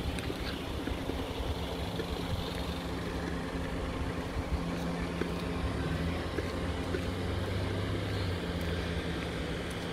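An engine running steadily nearby: a low, even drone whose tone shifts slightly partway through.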